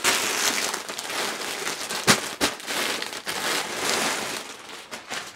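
Package wrapping crinkling and rustling loudly as a parcel is torn open and its contents pulled out, with one sharp snap or tear about two seconds in.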